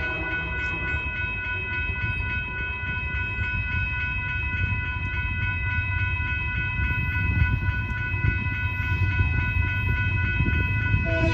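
Railroad grade-crossing bell ringing rapidly and steadily as the gates come down, over a low rumble of an approaching freight train that grows louder toward the end. A locomotive horn starts right at the end.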